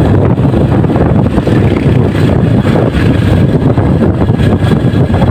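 Wind rushing over the microphone of a moving sport motorcycle, with its engine running underneath as a steady low noise.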